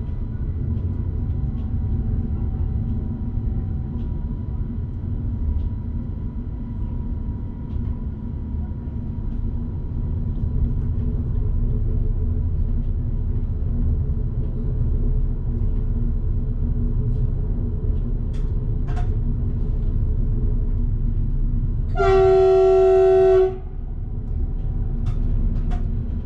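Passenger train running along the track, a steady low rumble heard from the driver's cab. Near the end the train horn sounds one blast of about a second and a half, much louder than the running noise.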